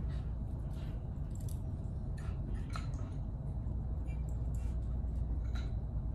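Steady low room hum with faint scattered clicks and light taps from a Shetland sheepdog's claws on the floor and its nose among leather and wood scent articles as it searches for the scented one.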